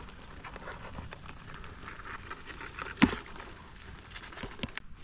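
Digging and handling noises in mangrove mud: small scattered clicks and scrapes, with one sharp knock about three seconds in.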